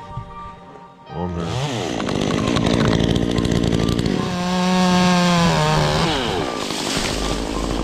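Two-stroke chainsaw revving: it starts suddenly about a second in, its pitch drops and climbs again, holds at high revs for a couple of seconds, then falls away near the six-second mark.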